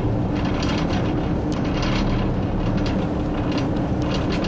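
A boat engine running steadily with a low drone, over an irregular mechanical rattle of clicks.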